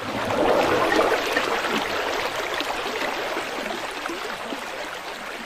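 Running water from rainwater runoff: a steady rush and trickle, loudest about a second in and easing slightly after.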